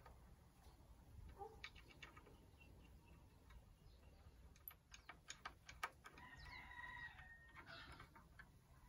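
Faint small clicks and taps of tuner buttons and screws being handled and fitted onto a ukulele's tuning pegs. About two-thirds of the way through, a faint high pitched sound is held for about a second and a half.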